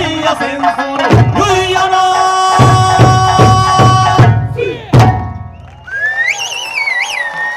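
Eisa drumming: large barrel drums and small hand drums struck together in unison, about three strokes a second, over held sung notes of the accompaniment, ending on a final stroke about five seconds in. A long, wavering high whistle then rises near the end.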